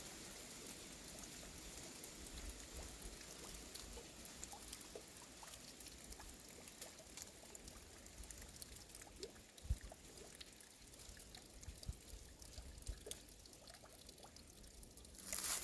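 Water trickling and pouring from a spring, with many small drips and ticks. Near the end there is a short, louder burst of rustling noise.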